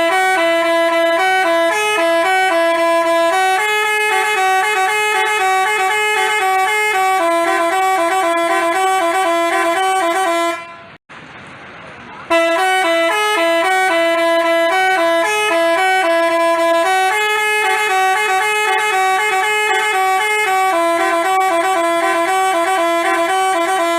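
Telolet basuri multi-tone musical bus horn playing a quick stepping tune. It stops at about 11 seconds, and after a short gap the same tune plays again.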